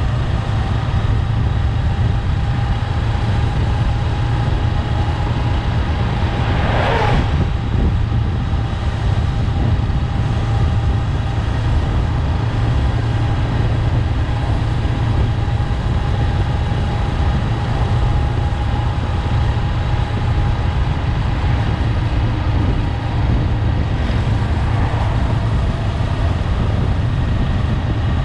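Honda 400X's parallel-twin engine running steadily while ridden at an even speed, with wind rush over the bike. About seven seconds in there is a brief whoosh, and a fainter one near the end.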